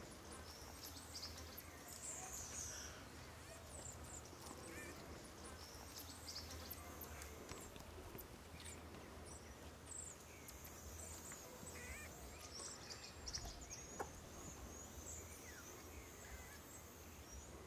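Faint outdoor ambience with many short high-pitched chirps and brief gliding calls from small animals or birds scattered throughout, over a low steady hum.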